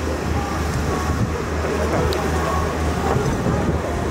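Open-air ballfield ambience: a steady low rumble under faint, distant voices of players and onlookers, with one small tick about two seconds in.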